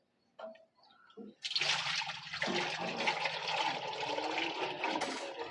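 Transmission oil pouring in a steady rush from a 26-litre can into the open transmission housing of an oil-brake tractor. It starts suddenly about a second and a half in, after a few faint clicks.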